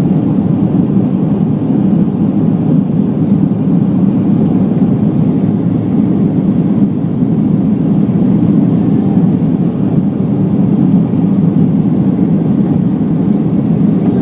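Boeing 737-800 cabin noise: a steady, loud rumble of its CFM56 turbofan engines and rushing air, heard from inside the cabin while the airliner is airborne after takeoff.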